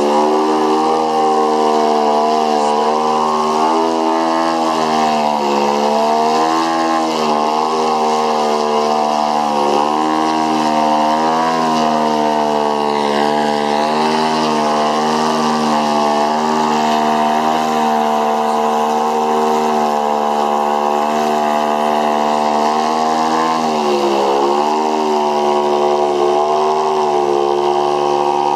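Gasoline engine and propeller of a giant-scale Extra 300 RC plane held in a hover, running hard and steadily. Its pitch dips and comes back up a few times, around 5, 10 and 24 seconds in, as the throttle is worked to hold the hover.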